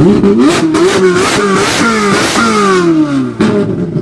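V8 engine being revved in quick blips, its pitch jumping up and falling back several times, then one longer rev that falls away. Near the end the sound dips briefly and comes back with a sharp new blip.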